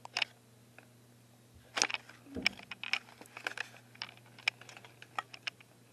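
Handling noise from a handheld camcorder being moved about: irregular light clicks and taps, beginning about two seconds in, over a faint steady hum.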